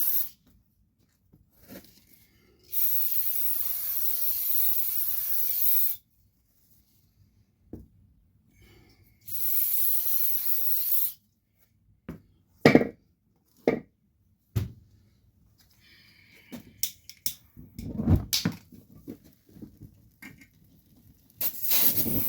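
Aerosol can spraying in long hisses, about three seconds and then two seconds, with another starting near the end, aimed at a tubeless minibike tire while trying to get its bead to seat on the rim. Between the sprays come scattered knocks and clicks of handling the tire and wheel.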